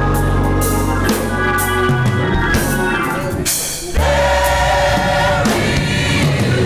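Gospel mass choir singing with organ, bass guitar and drum accompaniment. The music dips briefly, then the choir comes in loudly on held notes about four seconds in.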